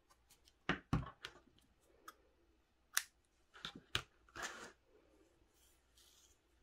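Small hand-handling sounds while finishing a crochet scarf: about seven sharp clicks and taps in the first four seconds, the loudest about a second in and near three and four seconds, then a short scratchy rub.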